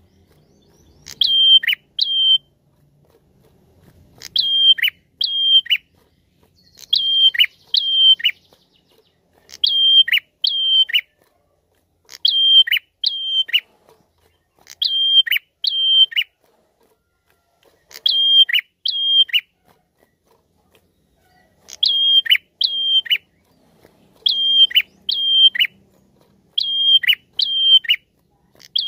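Caged prenjak, a small grey warbler with a rufous cap, singing loud, sharp high chirps in short phrases of two or three notes, each note dropping quickly in pitch. The phrases repeat about every two to three seconds.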